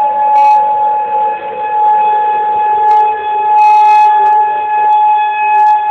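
Outdoor tornado warning siren sounding a steady wail that swells and fades every couple of seconds, with a second, lower tone slowly falling in pitch beneath it.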